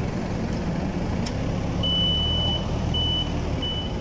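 Toyota electric reach truck's warning beeper sounding as the truck moves off: one longer high-pitched beep about two seconds in, then short beeps repeating at a steady pace, over a low steady hum.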